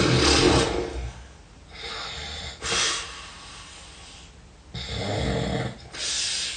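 A sleeping person snoring heavily. There are two loud low snores, one right at the start and one about five seconds in, with hissing breaths between them.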